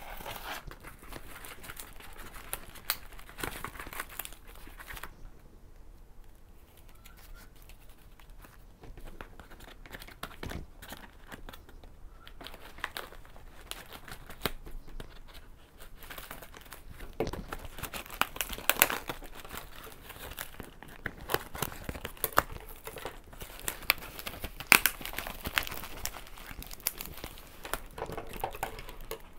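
Packaging being torn and crinkled open by hand: irregular crackling and tearing with scattered sharp clicks, quieter for a few seconds early on and busiest in the second half.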